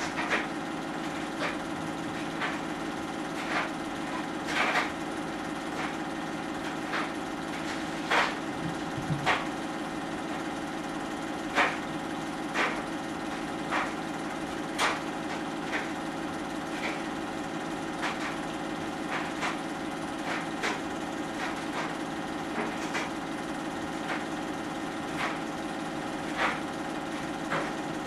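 Film projector running: a steady motor hum and film clatter with irregular sharp clicks about once a second.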